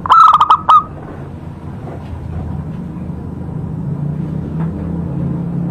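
Zebra dove (perkutut) giving a short loud burst of five or so rapid cooing notes in the first second. A low steady hum then slowly swells toward the end.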